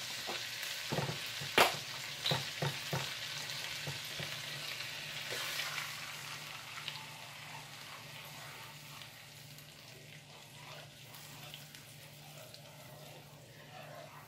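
Heavy cream sizzling as it goes into a hot skillet greased with margarine, with a few sharp knocks of utensil or container on the pan in the first few seconds; the sizzle grows fainter as the cream cools the pan.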